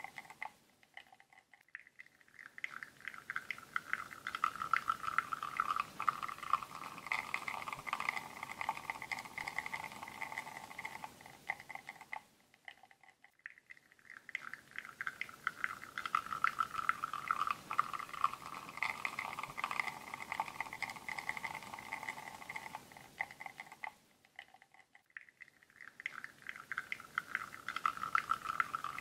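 Espresso machine pulling a shot through a bottomless portafilter: espresso spluttering and streaming into the cup over a steady whine. It comes in shots about twelve seconds long, each separated by a short lull.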